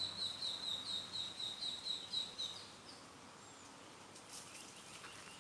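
A bird singing a fast series of short, repeated high chirps, about five a second, each dipping slightly in pitch; the series stops about two and a half seconds in, leaving faint outdoor background noise.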